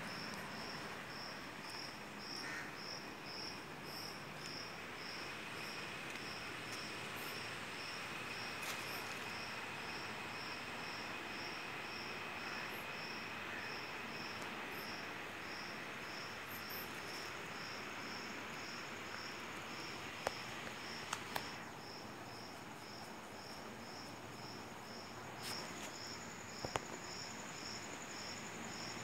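A cricket chirping steadily, a high-pitched chirp repeated at an even pace of about two a second, over a faint outdoor hiss, with a few faint clicks.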